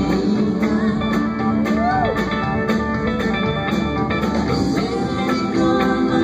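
Live band playing a country-rock song, electric guitars to the fore over a steady beat, with one note bent up and down about two seconds in.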